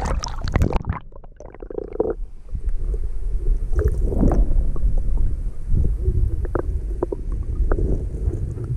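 Splashing as a camera goes under the surface of a shallow stony creek. The sound then turns muffled, and the rest is the low underwater rumble of moving creek water with scattered clicks.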